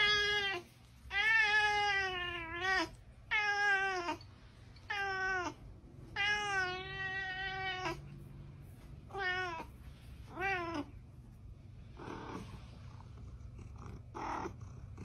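Domestic cat meowing again and again, a string of drawn-out meows that each slide down in pitch at the end. The later meows are shorter and fainter.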